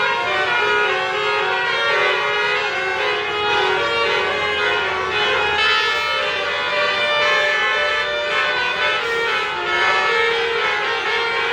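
A bus's telolet basuri musical air horn playing a continuous melody, its reedy, violin-like notes changing one after another.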